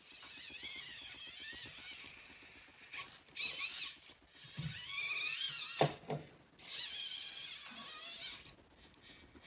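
Small electric motor and gearing of a 1/24-scale SCX24 RC rock crawler whining in several bursts as it is throttled over rocks, the pitch rising and falling with the throttle. A single knock a little before the sixth second, as the truck bumps on the rock.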